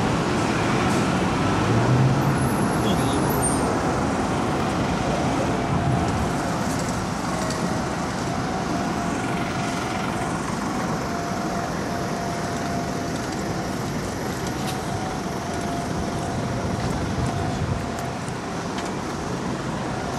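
Steady road traffic noise from cars and trucks passing on a busy city street.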